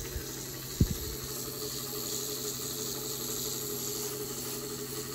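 Brass Diamond Ava rotary tattoo machine running with a steady motor hum, freshly repaired, with a single light knock about a second in.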